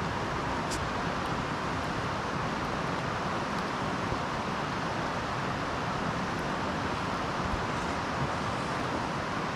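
Steady rushing of a nearby river, an even hiss of flowing water, with a faint click about a second in.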